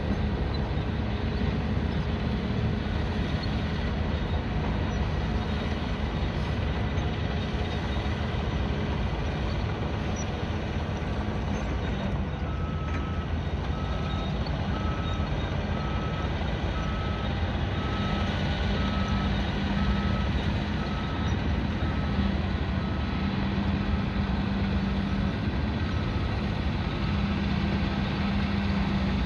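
Construction-site din with a heavy engine running steadily; from about halfway a vehicle's reversing alarm starts beeping, one steady tone about once a second.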